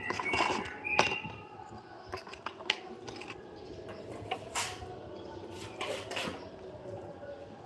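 Scattered light knocks and clinks of hand work at a building site: tools and materials being handled and set down, as for fitting a corbel ornament. The knocks are irregular, two louder ones about a second in and a few more around four and a half to six seconds in.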